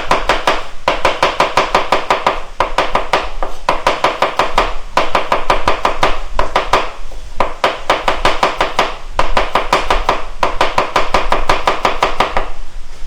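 Fast chopping of shallots with a knife on a cutting board, slicing them fine for a rempah spice paste: rapid, sharp knife strikes, several a second, in runs with short pauses, stopping near the end.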